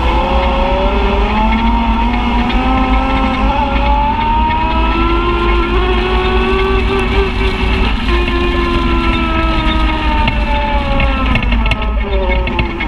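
Side-by-side UTV engine running under load along a muddy trail, heard from on board over a steady low rumble. Its pitch climbs for about seven seconds, breaks briefly near eight seconds in, then slowly falls, with a few sharp clicks near the end.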